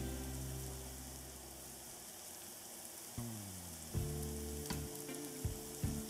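Sliced baby bella mushrooms sauteing in beef drippings in a nonstick skillet, sizzling steadily. A low hum runs underneath, fading out and returning with a short falling glide about three seconds in, and there are a few faint clicks near the end.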